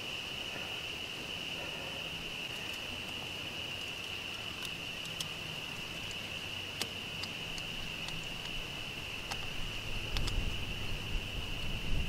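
A steady, high-pitched insect chorus drones throughout. Over it come a few small sharp clicks from a screwdriver tightening a screw-type hose clamp on a rubber fuel line. A low handling rumble builds near the end.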